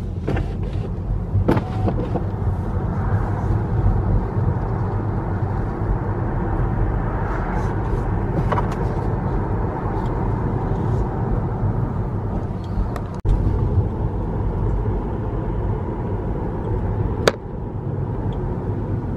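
Car cabin noise while driving: a steady low rumble of engine and tyres on the road. A few sharp clicks cut through it, the loudest near the end.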